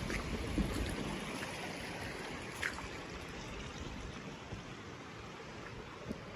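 Shallow stream water running over a stone ford, a steady rushing that gradually fades away.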